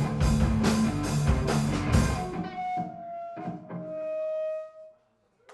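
Live punk rock band with distorted electric guitars, bass and drum kit playing loud, with steady drum hits, then stopping together about two seconds in, ending the song. A held guitar note rings on after the stop and fades away.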